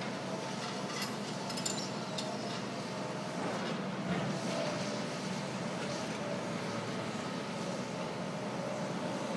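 Hyundai crawler excavator working a pile of demolition rubble, heard from some way off: its diesel engine runs steadily, with a few light clinks of brick and rubble about one to two seconds in.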